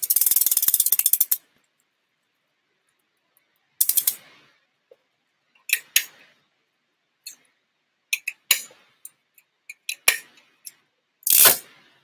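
BMX rear wheel spinning in a repair stand, its hub pawls ratcheting in a fast, even run of clicks that stops about a second in as the wheel is halted. After that come scattered single clicks and knocks from handling the wheel, spokes and crank.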